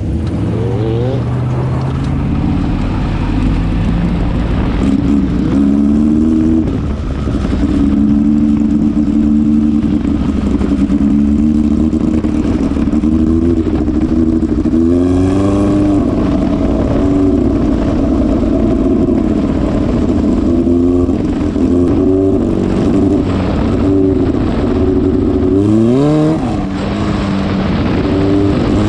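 Midget race car's engine heard from on board, running loud and steady as the car drives a dirt oval, its revs rising and falling with the throttle. The pitch climbs sharply about halfway through and again near the end.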